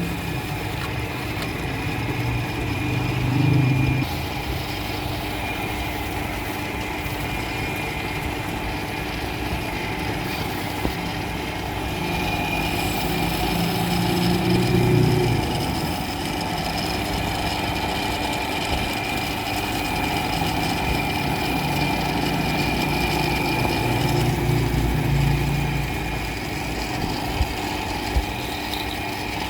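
A motor running steadily with a constant hum and whine, growing louder and lower for a few seconds about three times.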